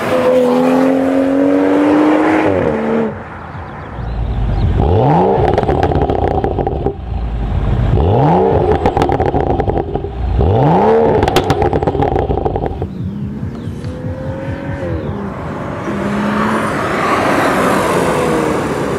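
BMW M235i's turbocharged inline-six, through an AC Schnitzer quad-tip exhaust, revving while standing. The revs rise slowly over the first three seconds, then come three sharp revs, each held high for about two seconds, with crackles and pops on the last two. Near the end the engine note settles and rises again as the car moves off.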